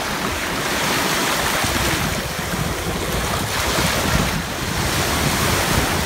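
Black Sea surf washing onto a sandy beach, rising in a couple of swells, with wind rumbling on the microphone.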